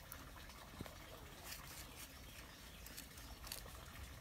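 Faint scattered scratches and ticks of a wooden stick being pushed into dry, loose soil to make planting holes.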